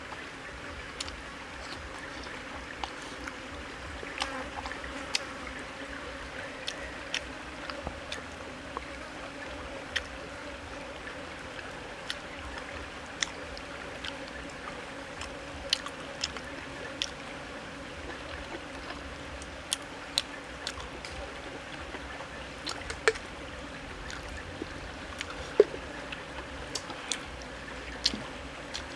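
A stream flowing steadily, with irregular sharp clicks of wooden chopsticks against a skillet as someone picks at and eats the food.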